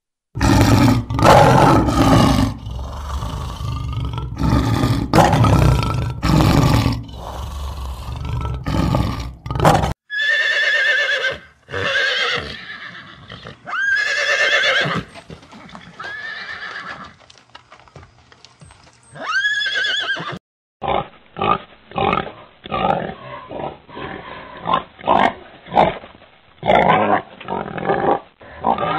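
A series of animal calls in turn. First a lion roaring in loud, heavy bursts for about ten seconds. Then horses neighing several times, and from about 21 s a pig giving a fast run of short grunts.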